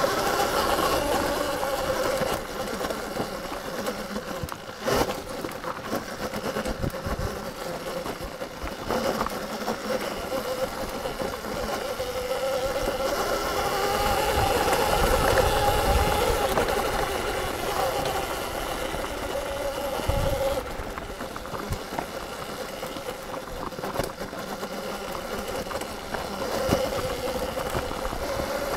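Electric dirt bike's motor whining steadily on the trail, its pitch wavering up and down with speed, over a low rumble with a few short knocks.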